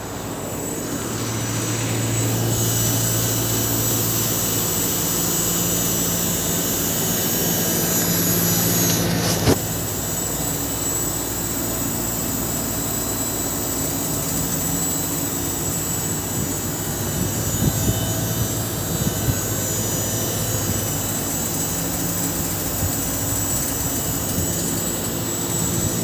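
Mitsubishi Heavy Industries VRF air-conditioning outdoor units running: a steady fan whoosh with a compressor hum and a faint high whine. One sharp click about nine and a half seconds in.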